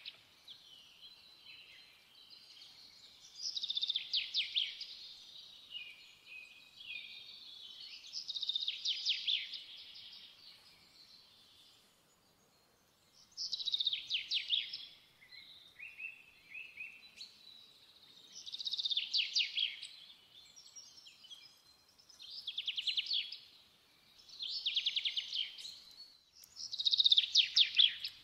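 Small songbird singing: short high-pitched phrases of rapid repeated notes, about seven of them a few seconds apart.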